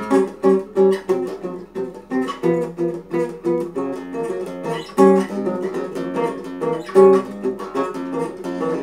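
Solo acoustic guitar, chords strummed and plucked in a steady rhythm of a few strokes a second, with stronger accented strums about five and seven seconds in.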